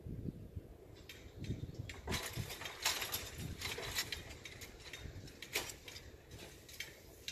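Level crossing barrier booms coming up to upright, with a run of light clicks and rattles as they settle, over a low rumble outdoors.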